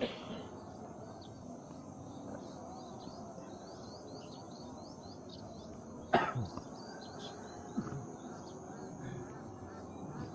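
Open-air rural ambience: birds chirping in quick repeated calls over a steady high insect drone. A sharp sudden sound comes about six seconds in, and a smaller one follows shortly after.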